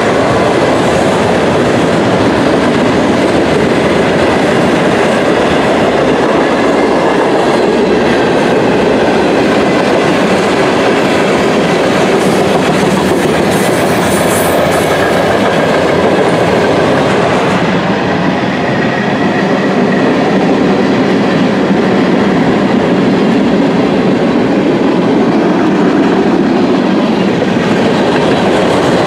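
CSX freight train cars rolling past on the rails: a loud, steady rumble and clatter of steel wheels on track.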